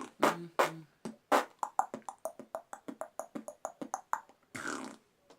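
Beatboxing, mouth-made percussion: three strong hits, then a fast run of short sounds at about six a second, ending on a longer hiss-like sound.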